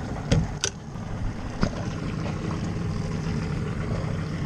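Boat's outboard motor running with a steady low hum, with a few sharp knocks in the first couple of seconds.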